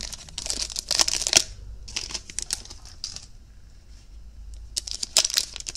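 Foil wrapper of a 2021 Topps Opening Day baseball card pack crinkling as it is torn open, with the cards rustling as they are slid out. It comes in three short crackly spells, with a quiet gap a little past the middle.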